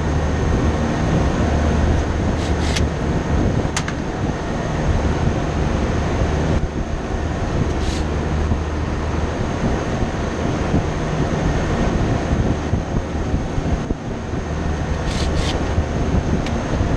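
Steady low rumble and hum of running air-conditioning machinery, broken by a few short, sharp metallic clicks: a pair a couple of seconds in, single clicks near 4 and 8 seconds, and another pair near the end.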